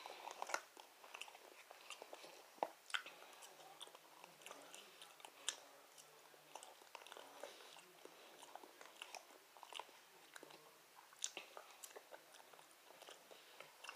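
Quiet sounds of a person eating with a fork: soft chewing and mouth noises with scattered faint clicks.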